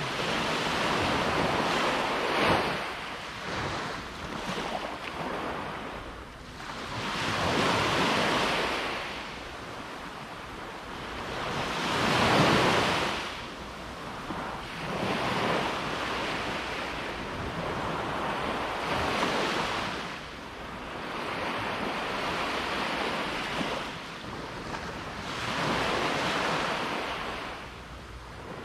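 Ocean surf: waves break and wash up the beach one after another, each a swell of rushing water that rises and falls away every four to six seconds. The loudest wave comes about twelve seconds in.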